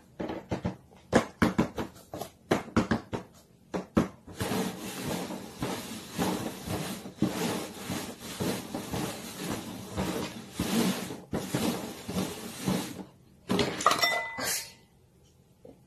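Plastic cups knocked and slid across a cardboard box as hands shuffle them: a quick run of sharp taps, then several seconds of continuous scraping and clatter, and a last short burst of knocks near the end.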